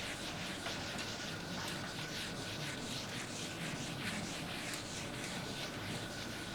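Faint, irregular strokes of writing over a steady background hiss, with a faint steady high tone underneath.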